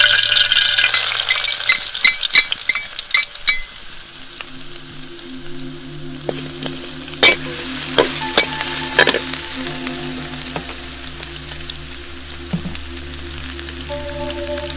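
Sliced shallots and minced garlic sizzling in hot oil in a metal wok, stirred with a metal spatula that scrapes and knocks against the pan. There are clusters of sharp knocks about two seconds in and again around seven to nine seconds.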